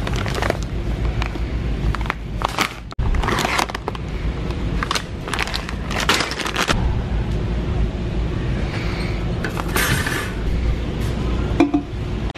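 Shopping cart rattling and plastic feed bags crinkling as supplies are handled and loaded, an irregular run of sharp clatters and rustles over a steady low rumble.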